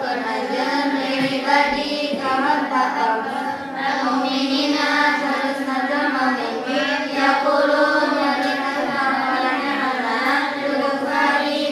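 A group of young female voices chanting together in unison, a continuous melodic recitation without pauses.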